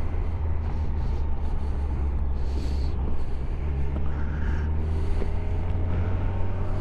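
Motorcycle engine running steadily at cruising speed, with wind rushing over the microphone and a few brief swells of hiss.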